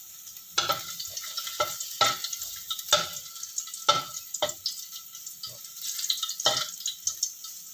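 Chopped garlic sizzling in hot oil in a wok, with a spatula stirring it and knocking against the wok several times.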